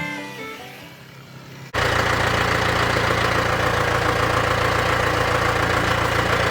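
Background fiddle-and-banjo music fading out, then a sudden cut about two seconds in to a band sawmill's engine running steadily at a constant speed.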